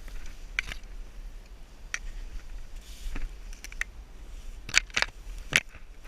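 A series of short sharp clicks or snaps, a few scattered and then three louder ones close together near the end, over a steady low rumble.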